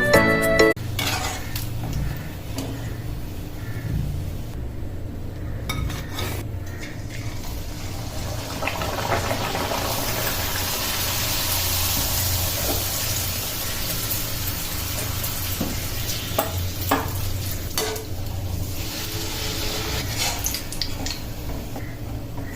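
Luchi deep-frying in hot oil, a steady sizzle that grows fuller about a third of the way in, with scattered clinks and knocks of a metal utensil against the pan.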